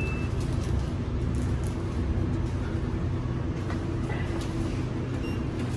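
A steady low hum with faint background noise, unchanging throughout.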